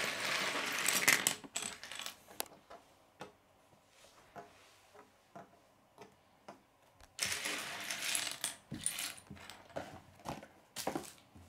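Loose plastic Lego pieces clattering and clicking on a wooden tabletop as they are gathered up by hand: a rattle at the start, scattered single clicks, then a longer rattle about seven seconds in.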